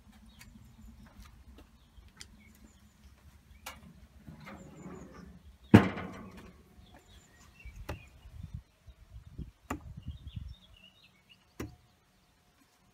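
The steel lid of a barrel smoker shut with one loud bang about six seconds in. Before and after it, scattered light clicks of metal tongs and handling against the smoker's steel grate.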